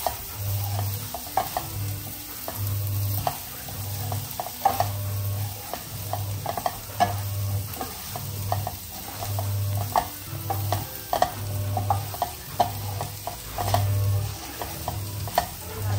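Wooden spatula stirring and scraping whole boiled baby potatoes around a pan, the coconut oil sizzling under them, with frequent short knocks of the spatula against the pan. Under it a low hum pulses on and off about once a second.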